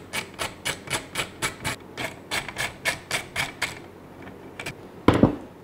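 Light metallic clicking, about four clicks a second, as the throttle body's mounting bolts are worked loose by hand. This is followed by two heavier knocks a little after five seconds in.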